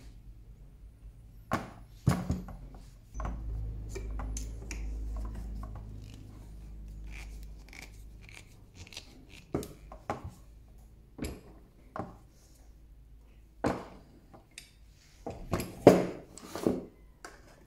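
Metal clamps being set and screwed tight on a wooden knife handle: irregular clicks and knocks of steel clamp jaws and screws against wood, with a cluster of louder knocks near the end.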